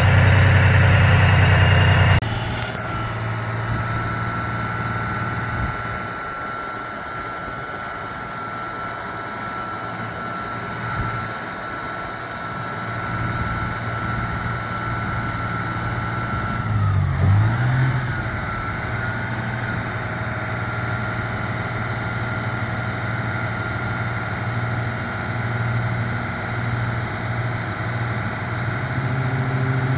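Fire truck engine running steadily to power the aerial ladder, a thin steady whine held above the engine hum. About halfway through, the whine and the engine note sag and wobble briefly, and near the end the engine grows louder and fuller.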